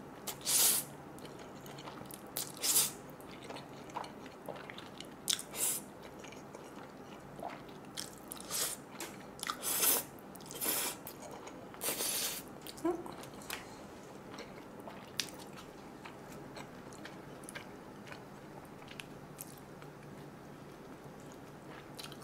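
A person slurping and chewing jjajangmyeon (black-bean-sauce noodles) close to the microphone, the noodles soggy and swollen from sitting. A series of short, sharp slurping and eating sounds fills the first half or so, then it turns to quieter chewing.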